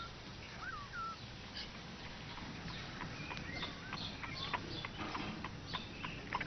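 Light clicks and taps, roughly two a second, of a cat pawing and pushing at the latch of a wooden puzzle box, with a few short high chirps near the start.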